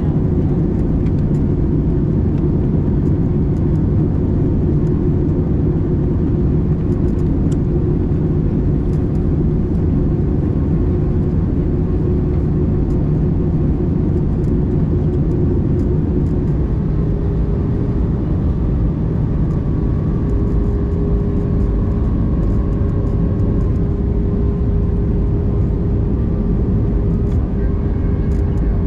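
Airbus A320 cabin noise in flight: a steady, loud rumble of airflow and the IAE V2500 engines. The engine hum steps up slightly in pitch a little over halfway through, as the thrust changes.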